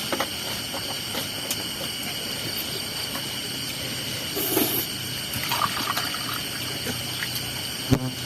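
Night insects in a rice field shrilling steadily at several high pitches. There are a few small clicks, a brief rustle about halfway through, and a short knock near the end.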